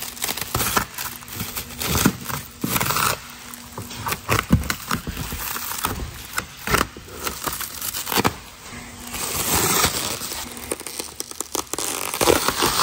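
Black plastic stretch wrap being slit with a small knife and torn and pulled away from a wooden crate, with irregular crinkling and ripping throughout.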